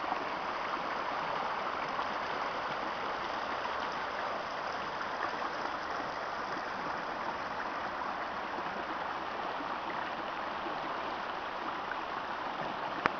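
Fast-flowing river, swollen with floodwater, rushing and churning over rocks and fallen branches: a steady, even rush of water that cuts off abruptly near the end with a small click.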